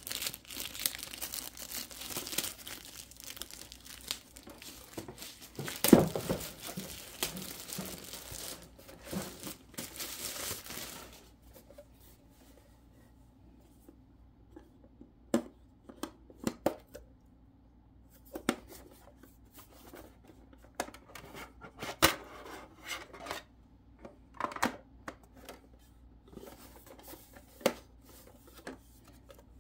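Plastic wrapping crinkling and rustling as the photo printer is pulled out of its bag, with one sharp thump about six seconds in. After about eleven seconds the rustling stops and there are scattered light clicks and knocks as the plastic printer body is handled.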